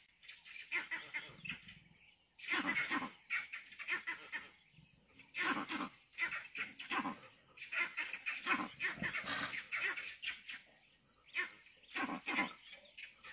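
Animal noises from a leopard confronting porcupines, coming as irregular clusters of short, rough bursts with brief quiet gaps between them.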